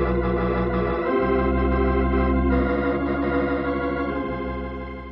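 Organ music bridge of sustained chords, changing chord about a second in and again after two and a half seconds, then fading out near the end: the cue that closes one scene of a radio drama and leads into the next.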